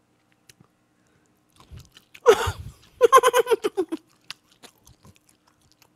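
A man chewing a mouthful of grilled pork with faint wet smacking clicks. About two seconds in he gives a short falling vocal cry, then a quick stuttering run of voiced pulses lasting about a second.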